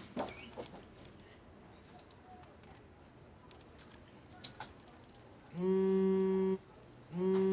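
Faint room tone with a few scattered clicks, then a mobile phone vibrating for an incoming call: a steady low buzz of about a second starting some five and a half seconds in, then a second buzz near the end.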